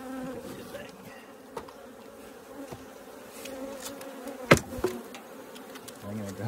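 A package of Carniolan honeybees buzzing in a steady, wavering hum from the opened wooden package box. A sharp knock about two-thirds of the way through, the loudest sound, as the stuck queen cage is pried at.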